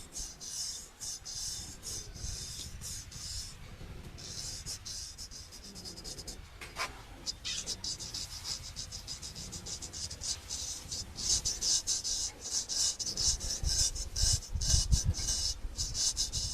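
Straight razor scraping across skin and stubble in quick, short, raspy strokes, coming in runs with brief pauses between them.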